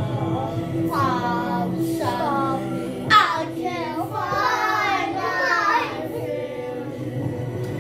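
A young girl singing along to a backing music track that plays steadily underneath. Her voice is loudest for a moment about three seconds in and drops back near the end.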